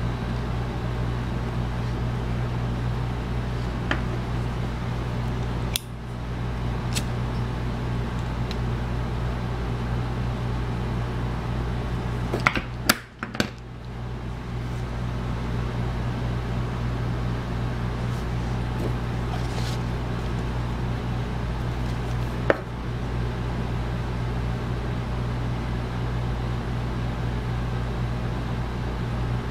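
Steady low hum with hiss in the background, with a few faint clicks scattered through it and a short cluster of clicks about halfway through.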